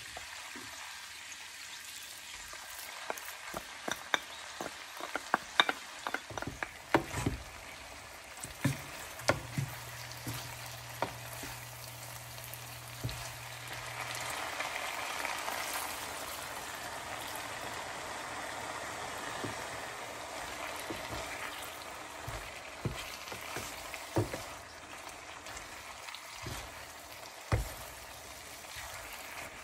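Pork and long beans sizzling in a nonstick frying pan while a wooden spatula stirs them, with scattered sharp knocks of the spatula against the pan, thickest in the first half. The sizzling swells louder for several seconds in the middle.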